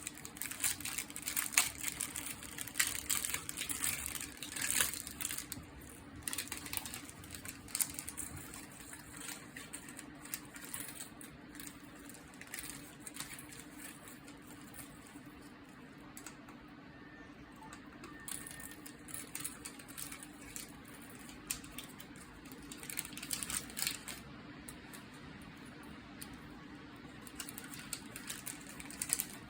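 Irregular light clicks and rustles of small parts and plastic packaging being handled, busiest at the start and again near the end, over a steady low hum.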